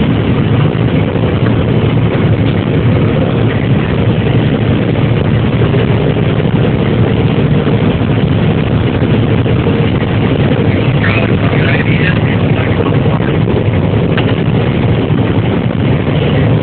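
John Deere 9770 combine running steadily while harvesting corn with a 12-row header, its engine and threshing machinery making a continuous loud hum as heard inside the cab.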